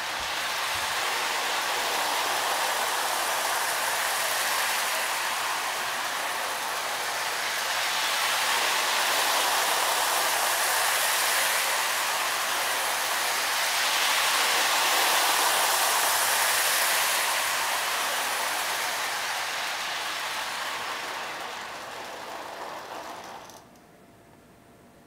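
Lionel NW2 diesel model locomotive and its passenger cars running around an oval of track: the electric motor's whir and the wheels rumbling on the rails, swelling and fading as the train circles. Near the end the sound dies away and cuts off as the train stops.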